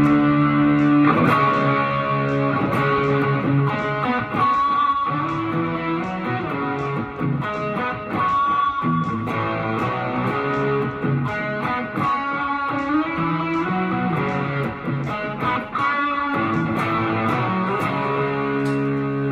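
Electric guitar played through a budget pedalboard and a Behringer Ultra-G cabinet simulator, straight into a mixer. It plays a slow church song: held chords with a melody line over them.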